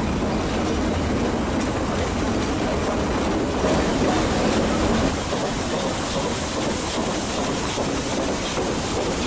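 Nilgiri Mountain Railway metre-gauge train running, a steady rumble of wheels and carriages on the track.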